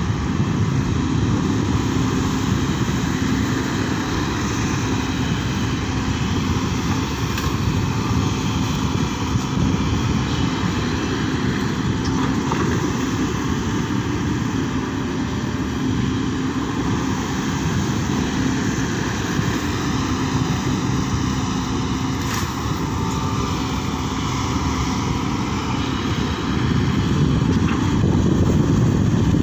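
Sany SY140 excavator's diesel engine running steadily as it digs, a continuous drone that grows a little louder near the end.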